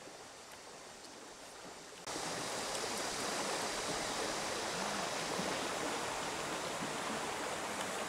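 Faint riverside ambience, then about two seconds in a much louder steady rushing noise of running river water starts abruptly and holds.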